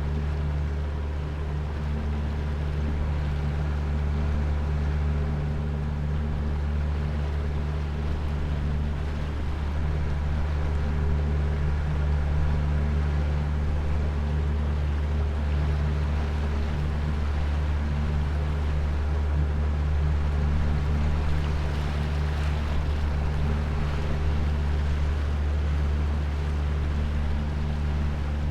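Jet boat's outboard motor with a jet drive running steadily under way, a constant low engine drone.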